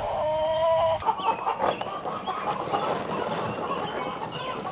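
Backyard hens clucking and calling, many short calls overlapping. The first second carries a steady held tone that cuts off suddenly.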